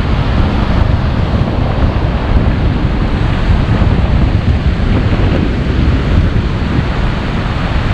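Small waves breaking and washing up onto a sandy beach, with a strong onshore sea wind buffeting the microphone in a steady low rumble.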